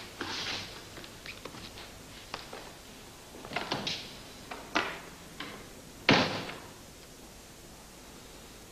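Scattered knocks and clicks, then a door slamming shut about six seconds in, the loudest sound.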